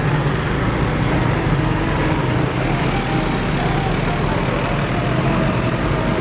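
Vehicle engines running steadily, a low hum under general street traffic noise.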